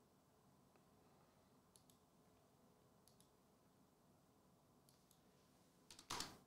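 Near silence: room tone with a few faint clicks, then a short rustle about six seconds in.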